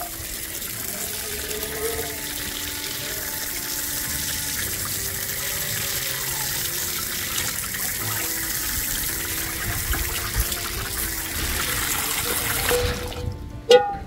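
Water running steadily from a tap, stopping abruptly about a second before the end, with soft background music under it.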